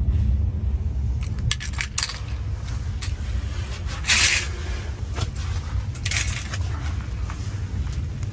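Clicks and scrapes of a small die-cast toy car being handled, with a louder scrape about four seconds in and another about six seconds in, over a steady low rumble.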